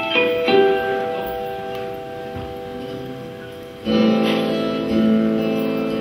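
Live band opening a slow song on acoustic guitar: a chord rings and fades, then about four seconds in a louder, fuller chord comes in with deeper notes beneath it.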